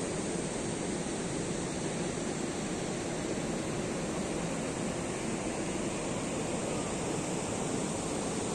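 Steady rushing roar of water pouring through the arches of a weir-like bridge, unbroken throughout.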